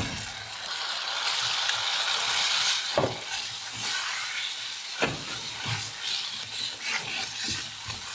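Thick chicken-in-white-sauce sizzling in a hot saucepan of spiced garlic butter as it is stirred in with a wooden spoon, with a steady hiss and a few sharp knocks of the spoon against the pan.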